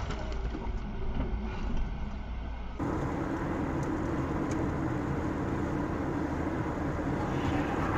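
Dashcam audio of a car driving on a highway: steady road and engine noise heard from inside the cabin. It changes abruptly about three seconds in, from a quieter, muffled noise to a fuller, even one.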